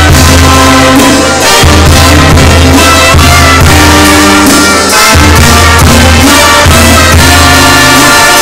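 Live Mexican banda playing loudly: trumpets and clarinets carrying the melody over a tuba bass line, with drum and cymbal beneath. The bass line drops out briefly twice, about a second and a half in and near the middle.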